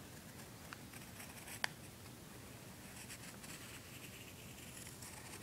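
Wooden pencil scratching faintly across lined notebook paper in short strokes as an outline is drawn, with a sharp click about one and a half seconds in.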